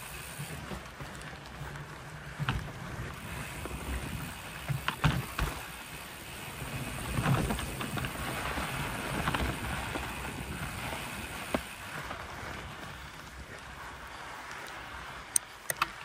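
Mountain bike rolling down a rough dirt trail: steady wind and tyre noise with scattered knocks and rattles, a few sharp clicks near the end.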